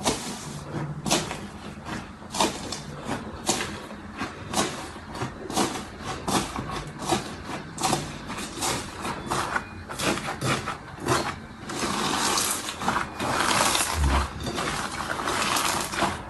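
Slime being squeezed and worked by hand, giving a quick irregular run of sharp clicks and pops, then a longer stretch of crackly squishing near the end.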